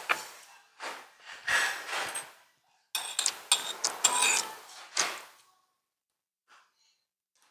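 Eating noises at the table: several short slurps of hot soup off spoons, mixed with sharp clicks of metal spoons against the bowls.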